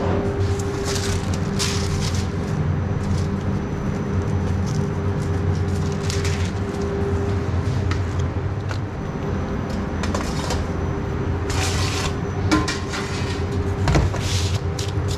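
Steady machine hum of kitchen equipment with short scraping and rustling handling noises on top, and a sharp knock about fourteen seconds in.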